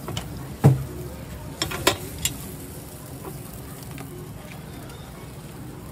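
Cast-iron bungeoppang (fish-shaped bread) molds clanking as they are turned on the griddle: several sharp metal knocks in the first two and a half seconds, the first the loudest. Batter sizzles in the molds underneath.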